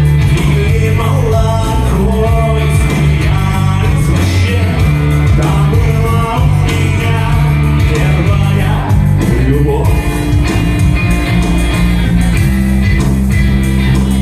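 Live rock music from a small band: electric guitars played over a loud, sustained low bass line, the notes changing every second or two.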